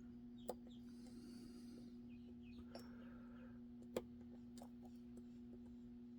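Faint metallic clicks and scratches of a lock pick working the pins of an Assa Twin 6K high-security cylinder under tension, with two sharper clicks, about half a second in and about four seconds in, over a steady low hum.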